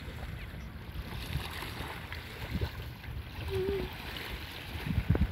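Wind rumbling on the microphone over small waves lapping at the sand of a calm bay, with a few louder low buffets near the end.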